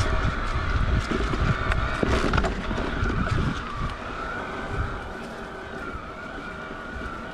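Niner e-RIP 9 electric mountain bike riding a dirt trail: rumbling tyres and rattling bike, wind buffeting the microphone, and a steady wavering whine from the mid-drive motor. The ride gets quieter about four seconds in.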